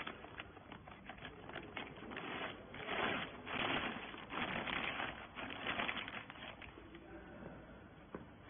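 Irregular clicking and rustling, loudest in a run of noisy bursts from about three to seven seconds in.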